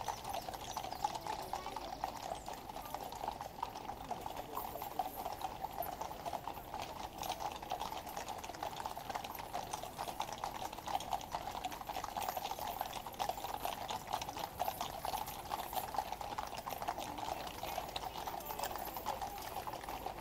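Hooves of a mounted troop of Household Cavalry horses clip-clopping on the road, many hoofbeats overlapping in a steady, continuous patter.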